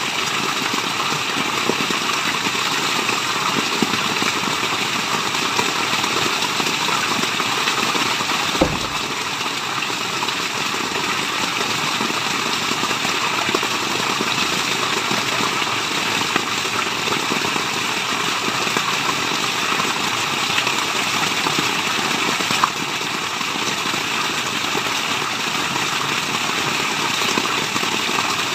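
Steady rushing water, an even white-noise wash of falling and running water, with one brief click about a third of the way through.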